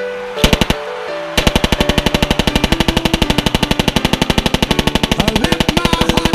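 A long burst of fully automatic gunfire, about a dozen shots a second and very even, over background music, preceded by a few separate shots about half a second in.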